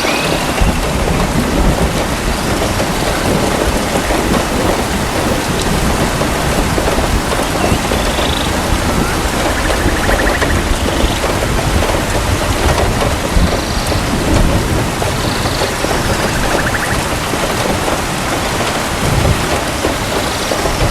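Steady heavy rain pouring on forest foliage, with low thunder rumbling and swelling underneath. A few faint high chirps come through the rain now and then.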